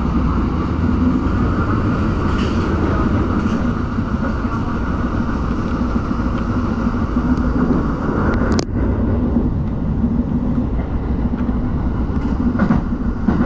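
Tokyo Metro Marunouchi Line train running, heard from on board: a steady rumble of wheels on rail under a steady low hum, with one sharp click about two-thirds of the way through.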